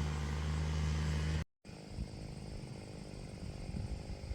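A steady low machine hum that cuts off abruptly about a second and a half in, followed by a quieter, uneven low rumble.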